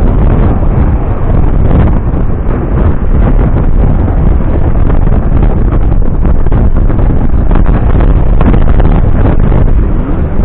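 Loud wind buffeting the microphone: a steady, rumbling roar with the most weight at the low end.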